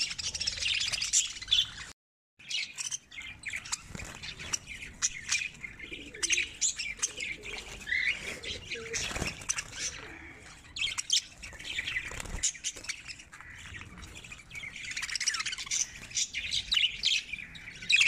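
A cage of budgerigars chirping together, a dense run of quick high chirps. The sound cuts out for a moment about two seconds in.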